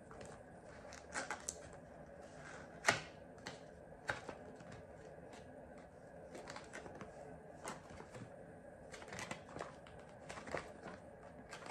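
Cardboard packaging being handled as a sleeve is worked off a box: scattered light clicks, taps and scrapes, with one sharper click about three seconds in.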